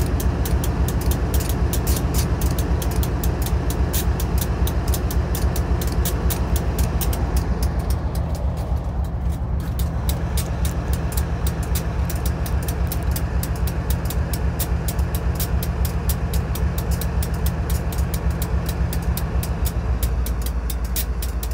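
Railroad grade-crossing bell ringing in rapid, even strokes, over the steady low drone of a GE ES44C4 diesel locomotive's V12 engine. The engine note changes near the end.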